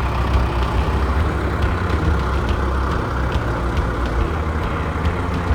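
Tractor engine running steadily with a low drone.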